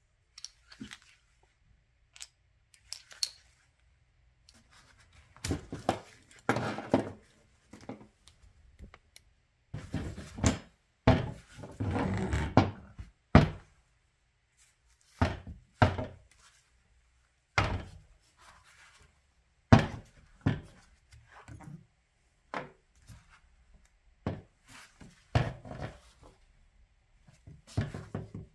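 Irregular thunks and knocks of tools and metal parts being handled while a shock absorber is taken apart. The knocks are scattered, with a few longer noisy spells in between.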